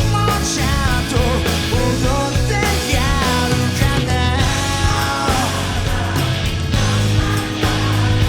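Live pop-rock band music, loud and dense, with a lead melody line that bends and wavers in pitch over the first few seconds.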